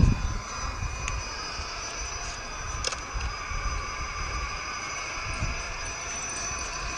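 Losi Rock Rey RC truck's electric motor and drivetrain whining steadily in several high tones as it rolls along a concrete sidewalk under a child's weight, with a low rumble underneath. Two brief clicks come about one and three seconds in.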